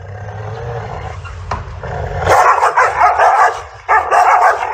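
Two dogs snarling and barking aggressively at each other across a closed fence: a low growl at first, then loud, rough snarling from about two seconds in, with a brief break near the end.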